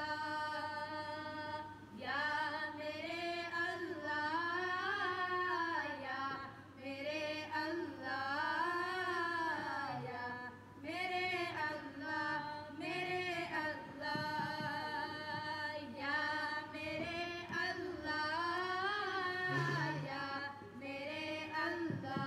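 A woman singing a naat, a devotional Urdu poem in praise of the Prophet, unaccompanied. She draws out long, ornamented notes that swell and fall, with short breaths between phrases.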